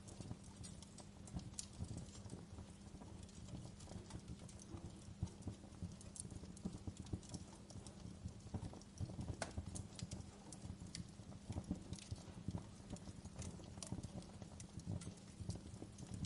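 Campfire crackling: irregular sharp pops and snaps, some louder than others, over a low steady rumble.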